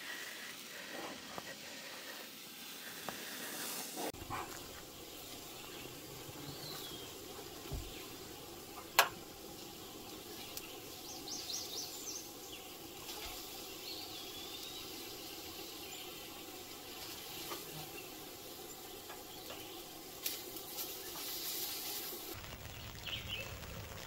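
Beef cubes sizzling quietly in a pan over a canister gas camp stove, with birds chirping now and then. There is a single sharp click about nine seconds in, and a low rumble comes in near the end.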